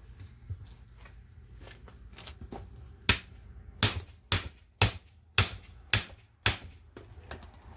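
Steel hammer blows on the door of a Sentry fireproof safe as it is forced open: a few light knocks, then seven sharp strikes, about two a second.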